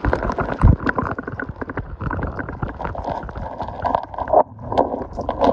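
Underwater sound from a phone's microphone submerged in shallow lake water: muffled gurgling and bubbling with many small knocks of water against the phone, the high end dulled. It starts suddenly as the phone goes under.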